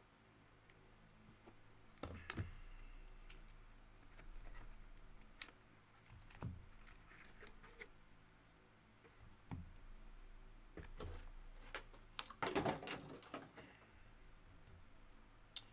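Cardboard card box and plastic-held trading cards being handled: scattered light clicks and taps as the box is opened and the cards are lifted out and set down on a mat, with a louder flurry of clattering about three-quarters of the way through.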